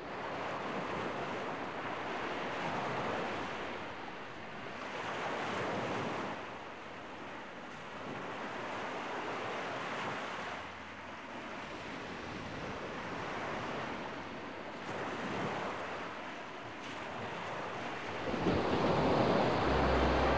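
Sea surf breaking and washing up on a sandy shore, swelling and fading every few seconds. Music comes in near the end.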